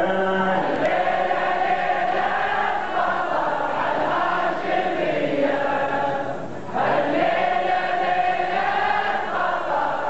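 A crowd of mourners chanting a Shia mourning lament (latmiya) together in unison, with a brief break about six and a half seconds in before the chant picks up again.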